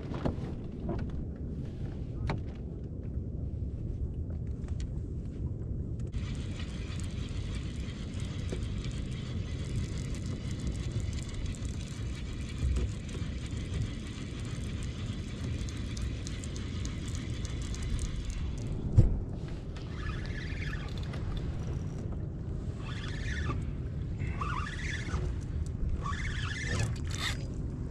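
Steady low rumble of wind on the microphone over open water from a kayak, with a short hiss from about six to eighteen seconds in, a single knock a little after that, and short scattered rattling sounds near the end.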